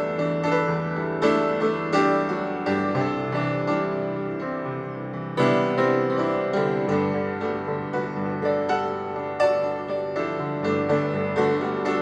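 Background piano music, gentle notes struck in a steady flowing pattern.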